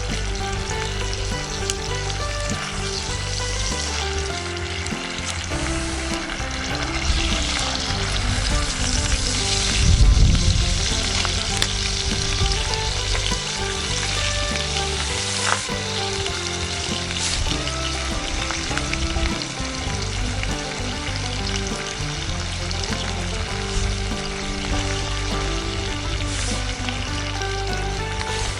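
Hamburg steak patties sizzling steadily in a cast-iron skillet over a fire, with a low thump about ten seconds in.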